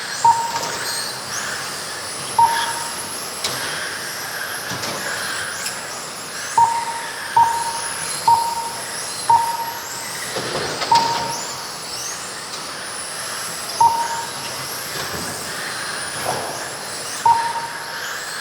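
Radio-controlled race cars' motors whining in high tones that rise and fall as the cars lap the track. Short beeps from the lap-timing system sound about nine times, at irregular spacing, as cars cross the line.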